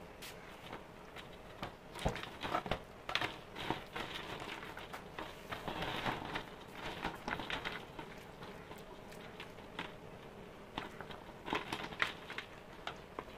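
Electric planer housing parts being scrubbed and moved by hand in a stainless steel bowl of soapy water: irregular sloshing and splashing, with knocks and clatters of the parts against each other and the bowl.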